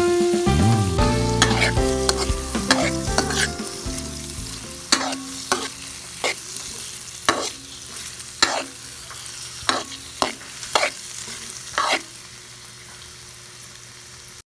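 Crab sticks and mixed vegetables stir-fried in a hot oiled pan: a steady sizzle, with about nine sharp scrapes and knocks of the stirring utensil against the pan, spaced roughly a second apart, that stop near the end, leaving only the sizzle.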